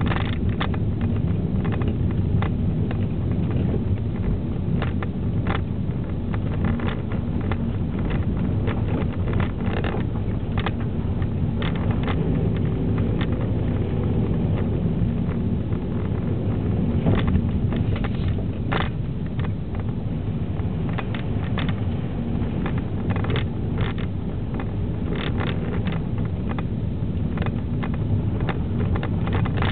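Inside the cabin of a 2009 Vauxhall Astra 1.8 petrol car driving along: a steady low engine and tyre rumble, with frequent short clicks and knocks scattered throughout.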